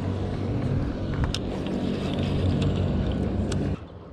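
Motorboat engine running nearby, a steady low hum with a few sharp handling clicks over it; it cuts off suddenly near the end.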